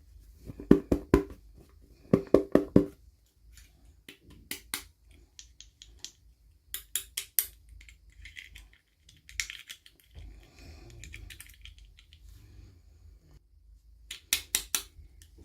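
Small plastic toy pieces and packaging handled by hand: short clusters of sharp clicks and taps, a few in quick succession each time, with a brief rustling scrape midway.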